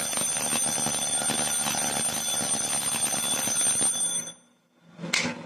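Homemade door alarm's buzzer sounding continuously with a shrill, rough tone, cutting off about four seconds in, then one more short burst near the end.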